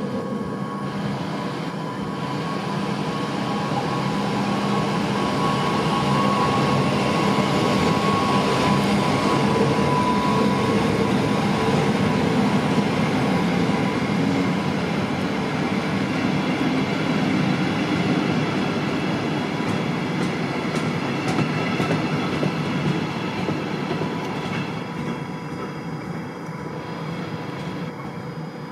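DB Class 112 electric locomotive and its double-deck coaches running past: a steady electric hum with several held tones over wheel-on-rail rumble. It grows louder over the first several seconds and fades slowly toward the end.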